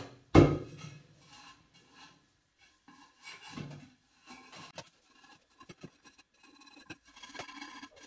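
Steel wool scouring burnt residue off a nonstick pan in short, intermittent scratchy strokes, with one sharp clunk of the pan about half a second in.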